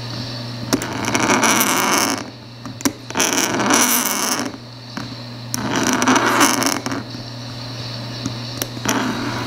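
Hobby knife blade drawn along clear plastic against a ruler, scoring it in three long scraping strokes. Lighter scratching and a few small clicks follow near the end, over a steady low hum.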